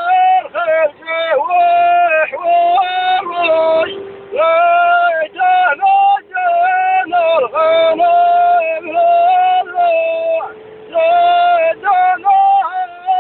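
A high singing voice, yodel-like, holding long notes broken by quick swoops in pitch, over a steady drone.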